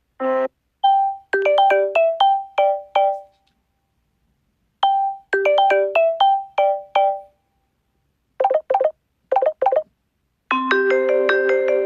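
Samsung Galaxy S6 edge+ ringtones playing in turn. A short melody of quick decaying notes plays twice with a pause between, then a few quick clusters of notes. About ten and a half seconds in, another ringtone starts with fuller held chords.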